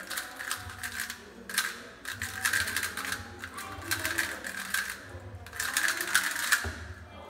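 Modified YuXin Little Magic Square-1 puzzle being turned rapidly in a speedsolve: dense plastic clicking and clacking of its layers in quick bursts, with brief lulls about a second and a half in and again about five seconds in.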